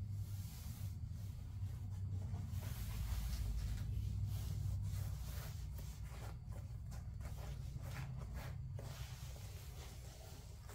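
Faint rubbing and brushing of hands smoothing and pressing a thin sheet of quarter-inch foam onto a car seat cushion's foam, with a few short scuffs, over a steady low hum.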